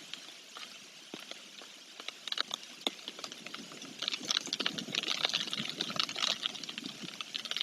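Rain falling, heard as a steady wash with many separate drops ticking. It grows heavier about four seconds in.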